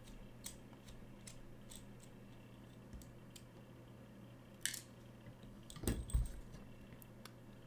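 Small metal clicks and light taps of Medeco M3 lock pins and tools being handled, with a brief scrape a little before five seconds and a few louder knocks around six seconds in, over a faint steady hum.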